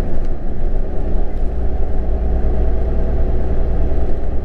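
Large truck's diesel engine and road noise heard from inside the cab while driving, a steady low drone with an even engine hum.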